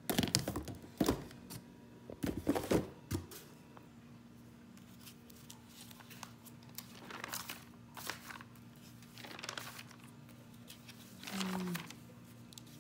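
Toiletry bottles and boxes being handled and shifted in a cardboard shipping box, with several loud knocks and rustles over the first three seconds. Then glossy catalogue pages are turned a few times, each a short papery swish.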